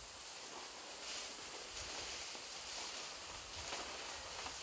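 Quiet forest ambience: a steady hiss with a thin, high, steady whine over it and a few soft thuds and rustles.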